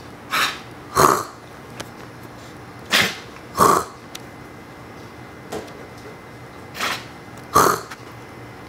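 A Siberian Husky and a person trading short, dry coughs, each seeming to copy the other. The coughs come in three quick pairs about three seconds apart, with a fainter cough between the second and third pair.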